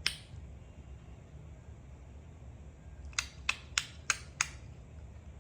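A run of five quick, sharp clicks, about three a second, over a low steady hum.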